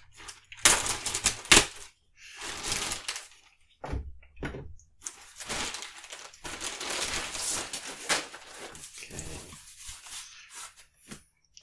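Padded shipping mailer being torn open and rustled: loud rips in the first two seconds, a few shorter tears, then a long stretch of crinkling as a cardboard box is pulled out of it.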